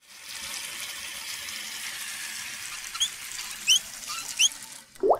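Channel intro sound effect: a steady high hiss with three short rising chirps, then a quick rising sweep just before it cuts off.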